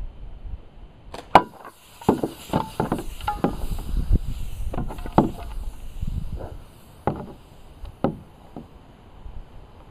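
A dart strikes the target with one sharp smack about a second in, followed by a hiss of air escaping from the pressurised plastic bottle that fades over several seconds. Under the hiss come a string of light knocks and clatters as the hanging bottle swings against the plastic board.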